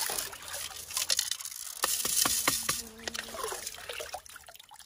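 Muddy water sloshing and dripping as a 2 mm mesh classifier sieve is worked in a gold pan full of water and lifted out, with a few light clicks in the middle.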